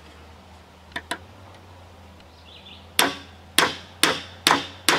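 Small sledge hammer striking steel on an air conditioner fan motor's shaft assembly: two light taps about a second in, then five sharp ringing metal blows about two a second from about three seconds in. The part is seized on very tight and is just starting to move under the blows.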